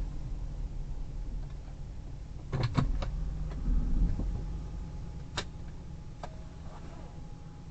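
Hyundai Terracan's 3.5 V6 engine running at low revs, heard from inside the cabin as a low rumble. A few sharp clicks and knocks come about two and a half to three seconds in and once more about five and a half seconds in.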